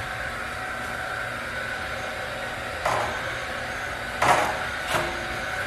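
A steady mechanical whir and hiss, with three sharp knocks in the second half.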